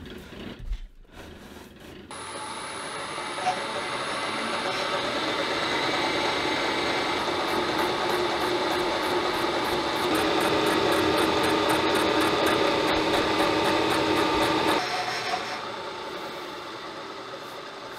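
Milling machine cutting a block of magnetic, stainless-like steel: a dense, steady cutting noise that starts about two seconds in, grows louder about ten seconds in, then drops off and dies away near the end.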